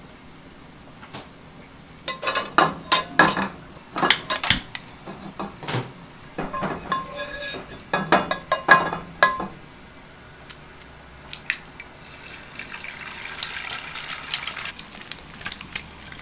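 Metal spatula scraping and knocking against a nonstick frying pan, a run of clatters as oil is spread over the pan. From about two-thirds of the way in, a steady hiss of eggs sizzling as they fry in the hot oil.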